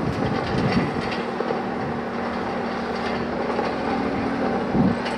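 Heavy diesel machinery running: the righted dump truck's engine and the excavator working beside it, with a steady hum that comes in about a second in and scattered metallic clanks, the loudest one near the end.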